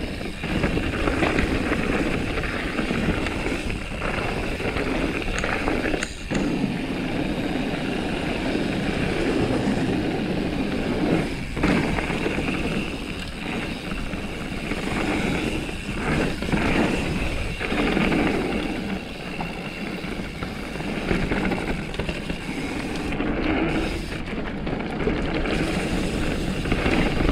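Mountain bike descending a dirt trail at speed: continuous tyre roll and rattle of the bike over rough ground, mixed with wind rush, dipping briefly a few times.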